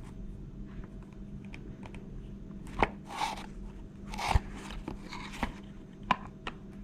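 Brass nut being tightened onto the threaded shaft of a quartz clock movement through the dial: scattered small clicks and three short scraping rasps in the middle.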